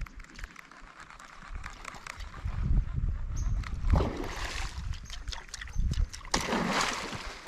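Splashing at the water surface as a topwater propeller bait is jerked across a lake for peacock bass, with many small ticks throughout. Two louder splashes come about four seconds in and about six and a half seconds in.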